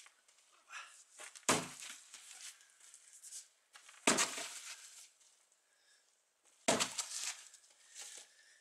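A block of polystyrene concrete cast around a thin 8 mm rebar being slammed down to break it apart: three sudden impacts about two and a half seconds apart, each with a short crumbling tail.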